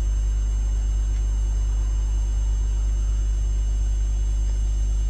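Steady low electrical hum with no other sound over it.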